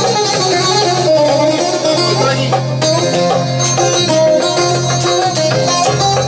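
Instrumental break of a Greek popular song: bouzouki playing a quick melody over guitar and keyboard accompaniment, with a steady bass line and regular drum strokes.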